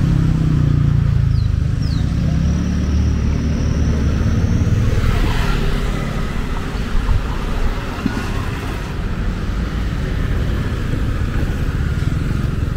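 Street traffic: motorbike and car engines passing close by over a constant low rumble. In the first couple of seconds, one passing vehicle's engine note falls in pitch as it goes by.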